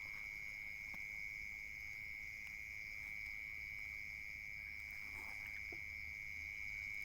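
Crickets trilling in one steady, unbroken high-pitched drone.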